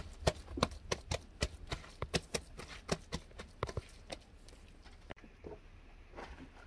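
Goats at a wooden feeding trough: a string of sharp, irregular clicks and knocks, a few per second, from hooves and feeding. About five seconds in they give way to a few soft pats of gloved hands shaping a dung cake.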